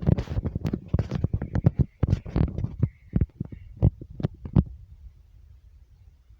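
A rapid clatter of knocks and rattles, dense for the first few seconds, then thinning to scattered strokes that stop about four and a half seconds in, over a low rumble.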